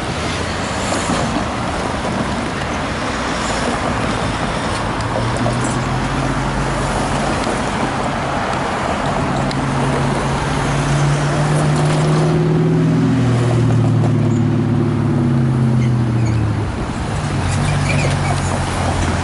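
Road traffic driving across a level crossing: a steady roar of tyres and engines. Through the middle, one engine's low hum rises and then falls in pitch as a vehicle passes.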